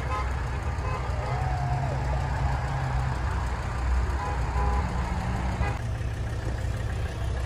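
Pickup trucks driving past on the road, a steady rumble of engines and tyres, with faint horn beeps midway.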